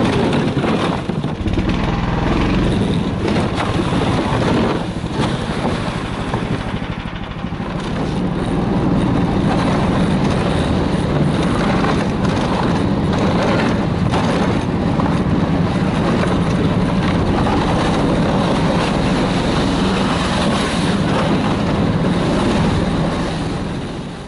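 Snowmobile engine running under way with a steady drone. It eases off briefly about six seconds in, then picks up and holds steady before fading out at the end.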